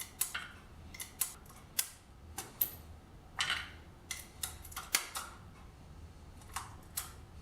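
Sharp, irregular metallic clicks and clinks from .223 brass cases and reloading tools being handled during priming, about a dozen in all, one with a brief high ring.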